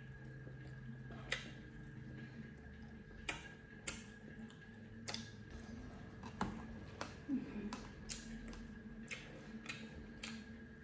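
Eating sounds: chewing, with about ten scattered sharp clicks and taps from a metal fork against the plates and paper noodle cup, over a faint steady hum.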